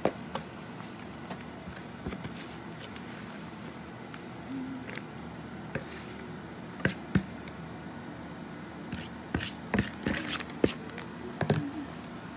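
A utensil scraping and knocking against a bowl and a foil pie pan as a crumbly sugar-and-cornmeal mixture is dumped and spread into the pan. Scattered clicks and taps, a few early on and bunched together in the second half.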